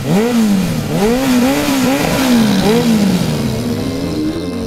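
Motorcycle engine revving, its pitch swooping up and down again and again, then settling into a steadier drone near the end.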